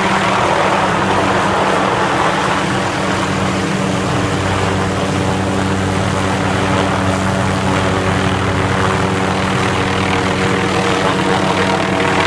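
Helicopter flying low overhead, its rotor and engine making a steady, loud drone with a constant hum.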